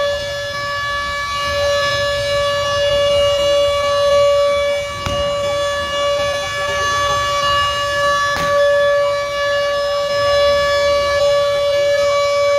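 A loud siren-like tone held steadily on one pitch, never rising or falling, over the murmur of a large crowd. Two sharp cracks cut through, about five seconds in and again about three seconds later.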